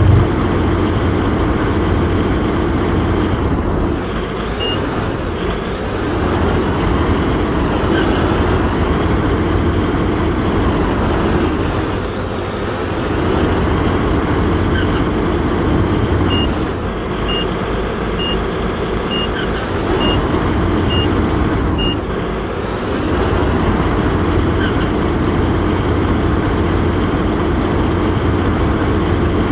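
Excavator engine running steadily, its level rising and falling slowly. In the middle there is a run of about half a dozen short high beeps, roughly one a second.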